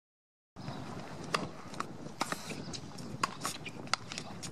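Silence for about the first half second, then a doubles tennis rally on an outdoor hard court: a series of sharp pops and taps from rackets striking the ball, ball bounces and players' shoes on the court, over a steady outdoor hiss.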